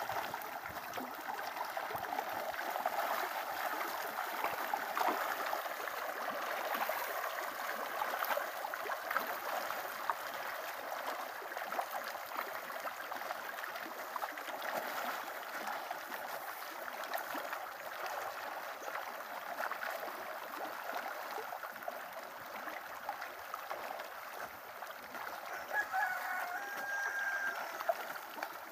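Steady splashing and churning of a pond surface thick with feeding tilapia. A rooster crows once near the end.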